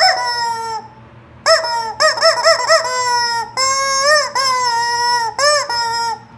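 Rubber chicken squeeze toy squawking in a run of honk-like calls. A few short squawks come in quick succession, then longer drawn-out ones, each with a brief pause between.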